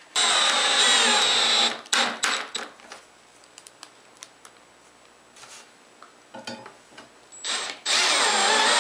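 Cordless drill driving screws through the corner holes of a steel bench clamp plate into a plywood workbench top. Two runs of motor whine, each about a second or so long, pitch falling slightly as the screw draws in: one at the start and one near the end, with light clicks between.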